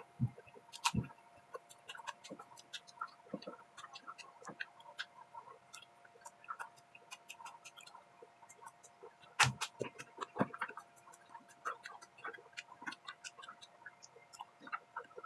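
Eating fried rice: irregular small clicks and taps of a spoon on a plate mixed with chewing, with one louder knock about nine and a half seconds in. A faint steady hum runs underneath.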